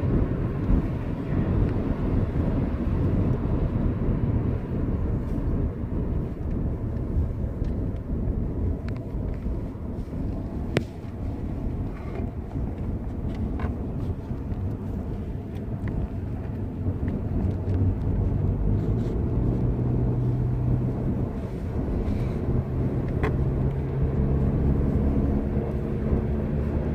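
Inside a moving car's cabin: steady engine and tyre rumble while driving, with a few faint ticks. An engine hum grows plainer in the second half.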